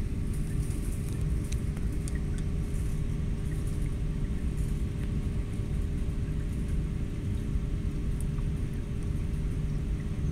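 Steady low rumble with a constant hum, like machinery or ventilation running, and a few faint clicks.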